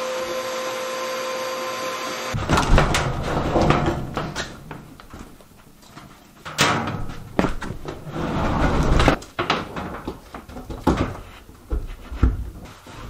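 A steady machine hum with a whine, cut off suddenly about two seconds in. It is followed by irregular knocks, thumps and rattling of things being handled.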